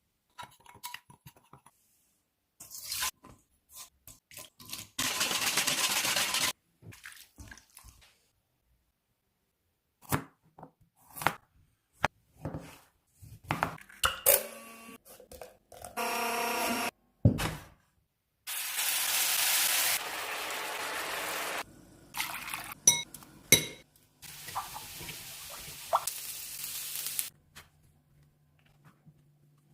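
Cooking-prep sounds in quick edited cuts: clinks and knocks of dishes and utensils, broken by several few-second stretches of steady hissing noise that start and stop abruptly.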